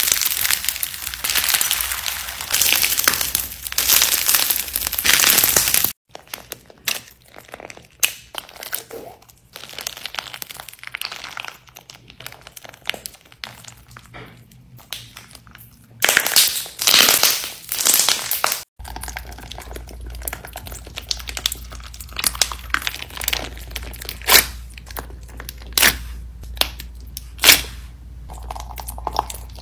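Crunchy slime packed with beads and crunchy bits being squeezed, stretched and poked by hand: thick crinkling and crackling for the first few seconds, then sparser crisp clicks and pops, with a louder burst of crackling just past the middle.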